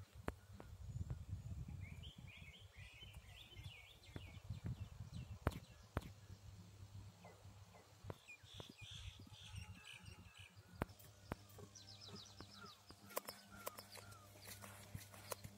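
Faint outdoor ambience: small birds chirping in short bursts several times, over a low rumble and scattered sharp clicks.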